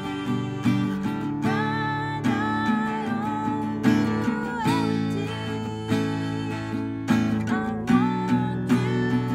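Acoustic guitar strummed in chords, with a voice singing softly along.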